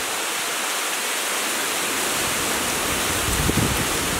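Strong wind blowing as a steady rushing hiss, with gusts buffeting the microphone as low rumbles near the end.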